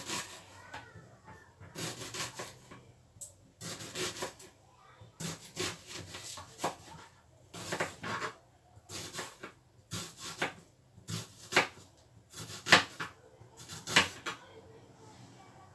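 Kitchen knife cutting an onion on a chopping board: an irregular run of sharp strokes as the blade goes through the onion onto the board, with short quiet gaps between, the loudest strokes near the end.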